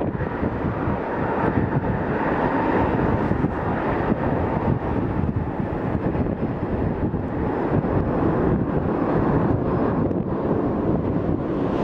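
Boeing 787-9 jet engines running at high power in reverse thrust during the landing rollout: a steady, loud rush. Wind buffets the microphone.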